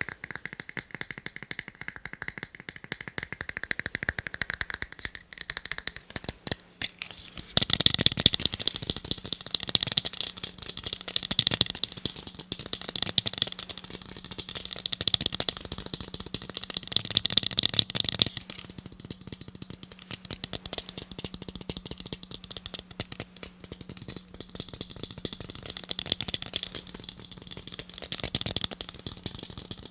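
Fingernails tapping fast on a pair of eyeglasses: a dense, rapid stream of light clicks that grows louder about a quarter of the way in.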